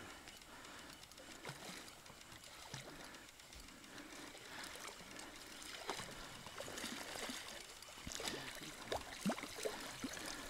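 Small river water trickling and lapping at an inflatable boat, with light splashes and ticks that grow louder and denser near the end as a hooked asp thrashes at the surface beside the boat.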